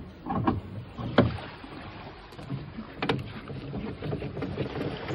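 A few sharp knocks in the first second or so, then the corner steady leg of a towed caravan being wound with a metal crank handle.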